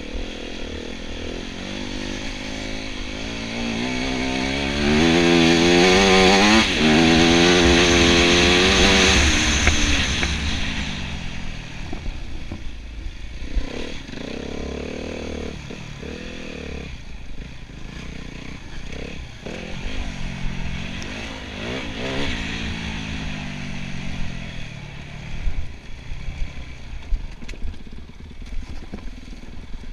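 Enduro motorcycle engine revving hard over rough ground, its pitch rising and falling with the throttle. It is loudest and highest from about five to ten seconds in, then drops to lower, uneven revs that rise and fall again, over a steady low rumble.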